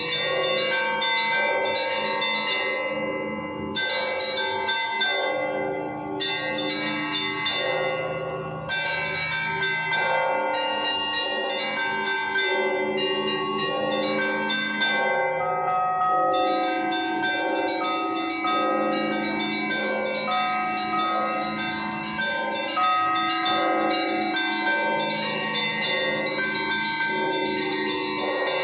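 Russian Orthodox church bells rung in a zvon: small high bells struck in a quick repeating rhythm over the long hum of larger, deeper bells.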